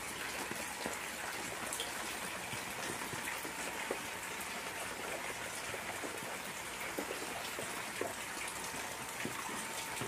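Heavy rain falling steadily on a garden pond and wet leaves: an even hiss dotted with small ticks of individual drops.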